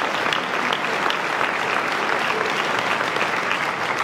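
Audience applauding: many people clapping steadily at an even level.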